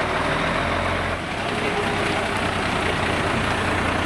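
Diesel engine of a Mercedes-Benz Actros fire-brigade hook-lift truck running as the truck drives slowly past, a steady low rumble whose note shifts about a second in.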